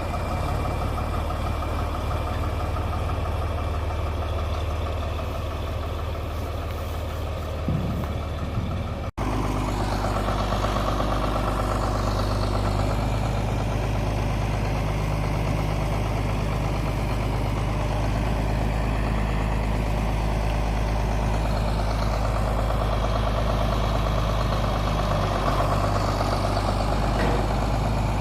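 A vehicle engine running steadily with a low, even hum. The sound changes abruptly about nine seconds in, then runs on just as steadily.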